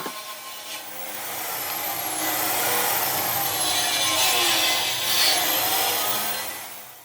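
Countersink bit grinding into the door frame around the drilled screw hole. A rasping cut builds up about a second in, holds, and dies away near the end.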